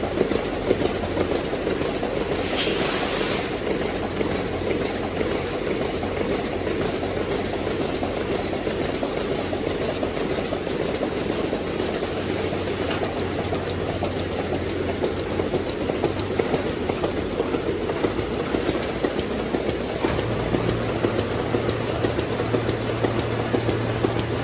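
Machinery running steadily with a dense, continuous rattle and a low hum; the hum shifts slightly higher about twenty seconds in.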